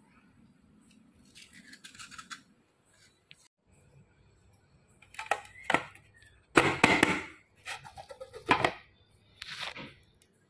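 A metal knife scraping faintly around the inside of an aluminium cake tin holding a steamed colostrum milk pudding, then a run of sharp knocks and clatters as the tin is turned over onto a plastic plate to unmould it, loudest about seven seconds in.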